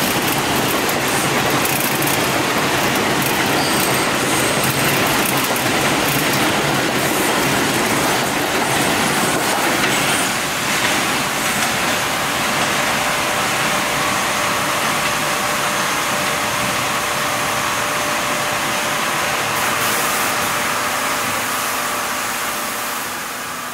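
R142 New York City subway train running on elevated track: a loud, steady rumble of steel wheels on rail. A thin steady whine joins about halfway through, and the sound fades out near the end.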